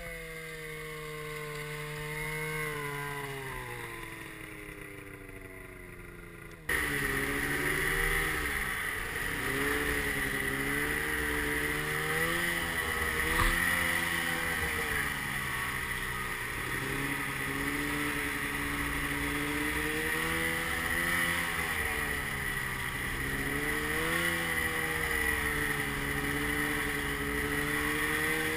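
Snowmobile engine heard from on board the moving sled, its pitch rising and falling with the throttle, with a steady high whine above it. About seven seconds in it jumps suddenly louder.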